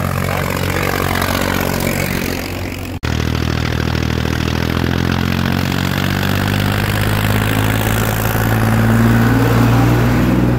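Powertrac Euro 50 tractor's diesel engine running steadily under load as it pulls a heavily loaded trolley past. The sound cuts out for an instant about three seconds in. It grows a little louder and higher near the end as the rig comes right up and over.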